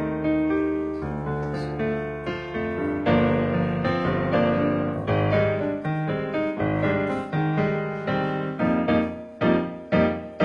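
Piano music, several notes at a time, ending in a few short, separate chords near the end.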